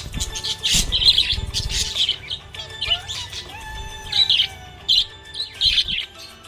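Budgerigars chirping, a busy run of short, sharp high-pitched chirps at irregular intervals, with music playing underneath.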